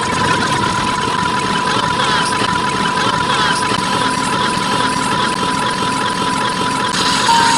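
A loud jumble of overlapping sound effects over a steady, high beep tone.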